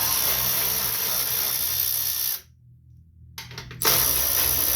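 Power drill spinning a 7/16 socket to back out the two top fuel-tank bolts: two steady runs of about two seconds each, one per bolt, with a short pause between.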